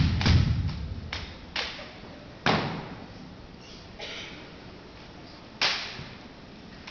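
Drill rifles being handled in a rifle drill routine: sharp smacks of hands on the rifles and thuds of rifle butts, several heavy ones in quick succession in the first second, then single sharp hits about two and a half seconds in and again near six seconds.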